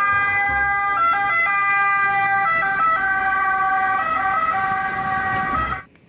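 Ambulance siren sounding steady tones that switch back and forth between two pitches, cut off suddenly near the end.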